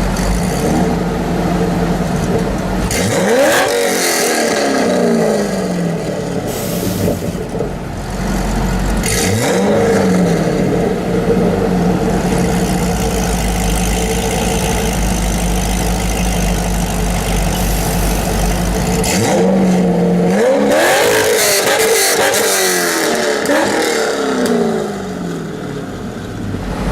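Drag-prepared Corvette V8 idling steadily and loudly, blipped up to high revs three times, each time climbing sharply in pitch and then dropping back to idle.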